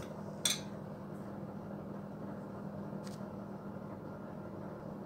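A steady low mechanical hum, with a light clink of a metal spoon against a glass bowl about half a second in and a fainter tap around three seconds in.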